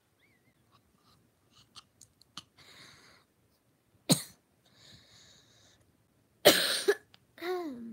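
A girl coughing: one sharp cough about four seconds in and a longer, louder fit near the end, with breaths drawn in between, ending in a short voiced sound that wavers in pitch.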